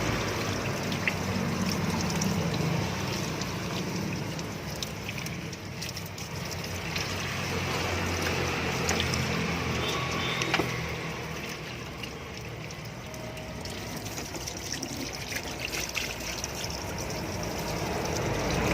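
Water running and splashing over a car's engine bay as it is rinsed, washing off engine degreaser, with a few small knocks.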